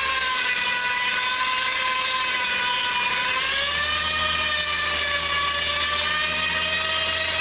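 Tow truck's wheels spinning on ice, giving a steady high whine that wavers and rises slightly about three and a half seconds in, with a low engine drone beneath: the tyres have lost grip on the icy street.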